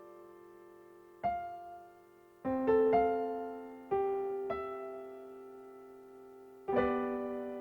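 Slow, sparse piano music: chords and single notes struck a few times, each left to ring out and fade, with a cluster of notes in the middle and a last chord near the end.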